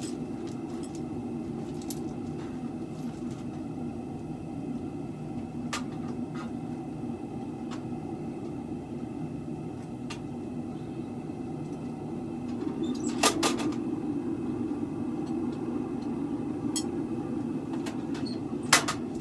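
Forge burner running with a steady rushing noise, broken by a few sharp metallic clicks and knocks, the loudest cluster a little past the middle.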